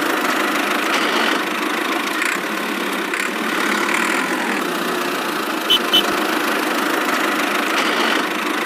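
Small battery-powered toy motor running steadily with a buzzy whir. Two short sharp clicks with a high tone come close together about six seconds in.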